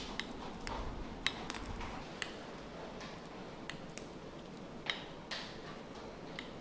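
About a dozen light, irregular clicks and taps with a few soft rustles: gloved hands working a piping bag of whipped cream over a small glass cake stand that is turned by hand, the tip and stand knocking lightly.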